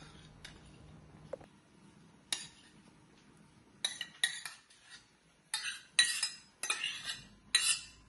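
Metal spoon scraping and clinking against a stainless steel saucepan as cooked rice is scooped out, a string of sharp strokes that grows busier and louder in the second half.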